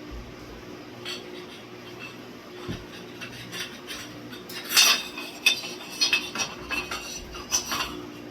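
Small hard objects clinking and knocking together as they are handled by hand: scattered clinks at first, then a denser run of sharper, louder clinks from about halfway through.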